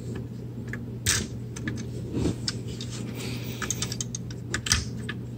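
Light, irregular plastic clicks and taps as a katana accessory is pushed into a Transformers action figure's hand and the figure's arms are posed. A faint steady hum runs underneath.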